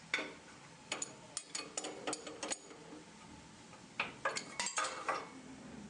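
Drill bits being tightened into the chucks of a glass drilling machine: a series of sharp metallic clicks and taps in two bursts, the first about a second in and the second near the end.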